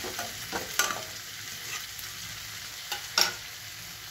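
Flat metal spatula scraping and knocking against a metal kadai as cauliflower and potato are stirred in frying spice paste, over a steady sizzle. A few separate scrapes, the loudest about three seconds in.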